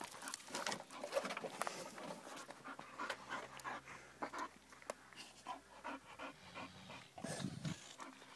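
French bulldog panting, its head inside a plastic flower pot, with faint scuffs and clicks of paws and the pot on gravel.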